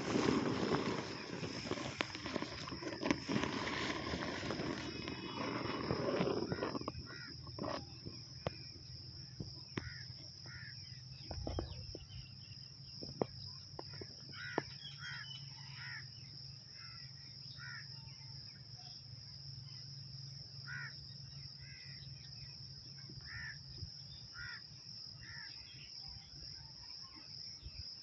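A steady high-pitched insect drone throughout, with short bird calls repeating every second or two from about eight seconds in. For the first seven seconds a loud rustling, as of grass brushing the microphone, covers them.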